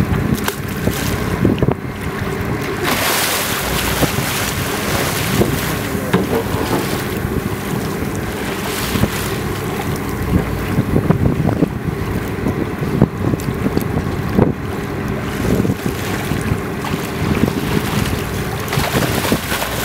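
Choppy sea water rushing and splashing along the side of a fishing boat, with wind buffeting the microphone and a steady low hum of the boat underneath. The wind noise swells briefly about three seconds in.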